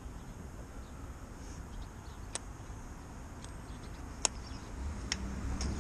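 Low, steady city-street rumble of distant traffic, with three or four sharp small clicks spread through it.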